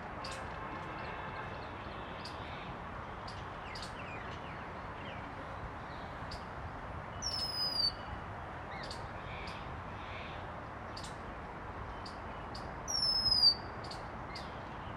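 Oriental magpie robin giving a loud down-slurred whistle twice, about six seconds apart, over steady background hiss with scattered faint, short high chips.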